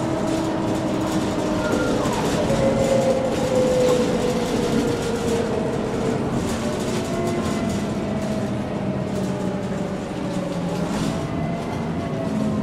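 MAN NG 313 articulated city bus running under way: a steady engine and driveline sound with a whine that falls in pitch over a few seconds and then rises again.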